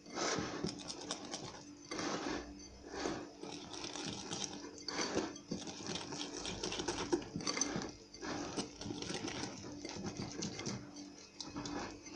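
Sponge-cake batter being beaten by hand in a glass bowl: irregular whisk strokes scraping and knocking against the glass, over a steady motor hum.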